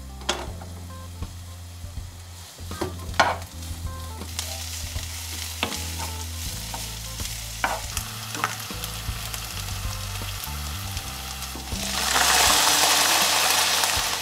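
Minced garlic sizzling in hot oil in a frying pan, with a few sharp taps of a utensil. About twelve seconds in the sizzle gets much louder, as the boiled instant ramen noodles are stir-fried in the pan.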